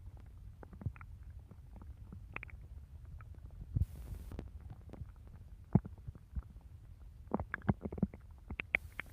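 A stomach growling: a low rumble with irregular short gurgles and squeaks, coming more thickly in the last couple of seconds.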